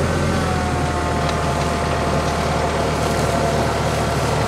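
TYM tractor's diesel engine running steadily at raised revs, driving a three-point post hole auger boring into the ground, with a whine that sags slightly in pitch as the auger works down.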